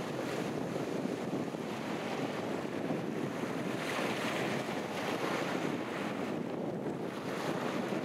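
Sea waves breaking and washing on the shore in a continuous rushing wash, swelling about halfway through, with wind buffeting the microphone.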